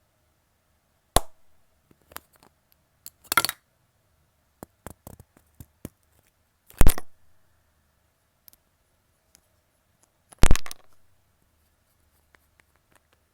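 Scattered sharp knocks and clicks of objects being handled, with small ticks in between and two louder strokes about seven and ten and a half seconds in.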